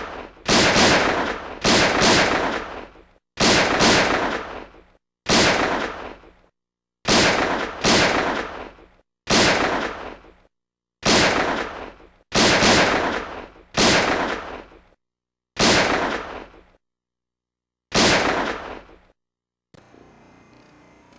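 Pistol gunshot sound effects: about a dozen single shots, one to two seconds apart, each with a long ringing echo and dead silence between. The shots stop shortly before the end, leaving faint background noise.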